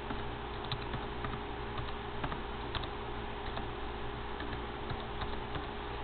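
Computer keyboard keys clicking at an irregular pace as a short command is typed, two keystrokes sharper than the rest, over a steady electrical hum.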